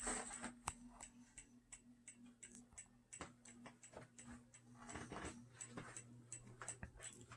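Heritage Furneaux ceiling fan running on medium, its motor giving a faint steady hum, with a regular ticking about three times a second while the off-balance fan wobbles.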